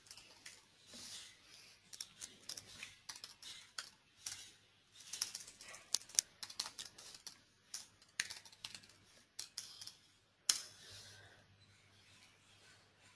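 Computer keyboard typing in quick, irregular keystrokes, ending about ten and a half seconds in with one louder, sharp click.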